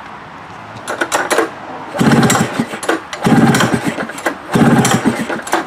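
Ski-Doo snowmobile engine being pull-started by its recoil rope: three hard pulls about a second apart that turn it over without it catching.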